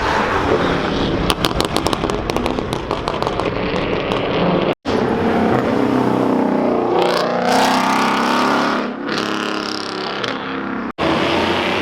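Car engines revving hard and accelerating, with a rapid run of crackling exhaust pops about a second in and a rising engine note in the middle. The sound cuts off abruptly twice.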